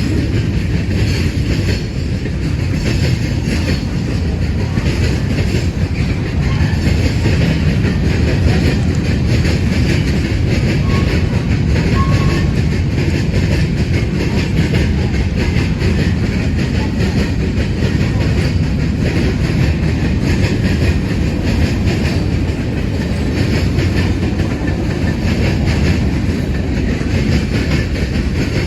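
BNSF manifest freight train rolling past: a steady rumble of the freight cars with their wheels clacking over the rail joints.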